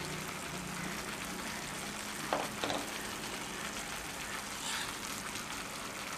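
Tomato-onion masala frying in oil in a pan, a steady sizzle, with two light knocks about two seconds in.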